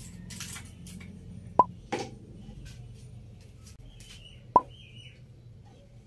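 Hard objects being set down on a desk shelf: two sharp knocks with a brief ring, about three seconds apart, with a duller knock just after the first. Light rustling comes near the start.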